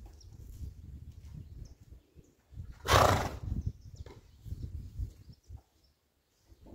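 A horse snorts once, a short noisy blast a little under three seconds in, over an on-and-off low rumble.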